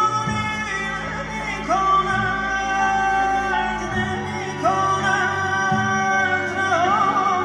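Live Persian orchestral music with bowed strings and a male singer. The melody slides up into a long held note three times, over sustained low bass notes.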